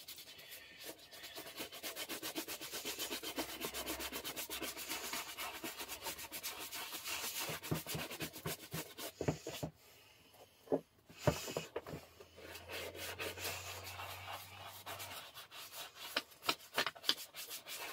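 Shoe brush scrubbing wax polish into leather work boots in quick, rapid strokes, stopping briefly about ten seconds in with a couple of knocks before the brushing resumes.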